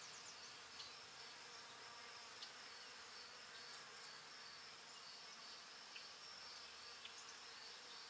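Near silence: a faint steady high hiss, with a few faint ticks.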